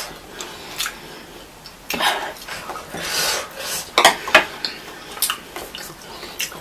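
Chopsticks tapping and scraping on a nearly empty ceramic plate: a scatter of light clicks and short scrapes, with louder ones about two and four seconds in.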